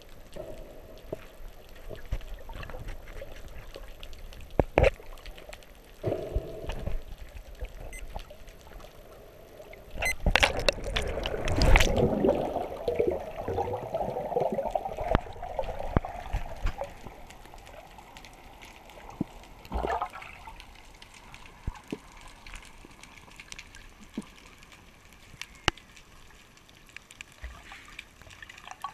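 Water sloshing and gurgling around a GoPro camera in its underwater housing, heard muffled. About ten seconds in comes a loud rush of splashing and bubbles as the freediver dives under. It then fades to a quieter underwater hiss with scattered clicks while he descends.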